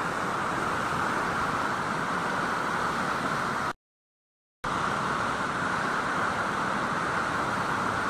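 Muddy floodwater torrent rushing past in a steady, even roar of water noise. The sound cuts out completely for just under a second about four seconds in, then carries on unchanged.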